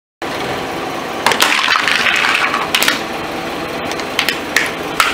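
A car tyre rolling onto a hard white plastic container and crushing it: a run of loud cracking and crunching starting about a second in, then a few single sharp snaps, over a steady background noise.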